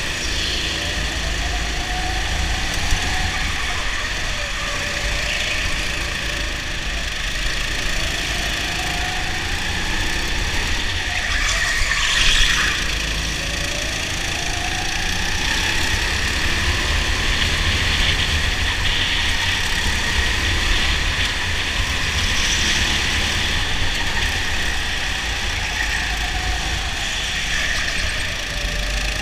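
Onboard sound of a rental go-kart lapping an indoor track: the kart's motor pitch climbs along each straight and drops back into the corners, over a steady low rumble. About midway there is a brief, harsher noise.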